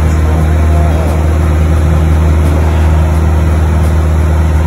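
Steady drone of a light aircraft's propeller engine, heard from inside the cabin: a loud, even low hum with a second tone above it.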